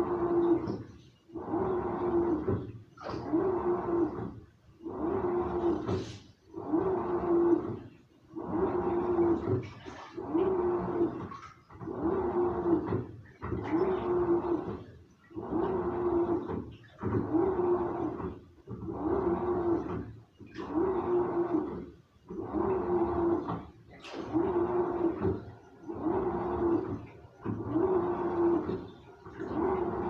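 Samsung front-loading washing machine in its wash cycle: the drum motor gives a steady humming tone, along with the slosh of water and laundry, for about a second at a time, repeating about every second and a half as the drum agitates.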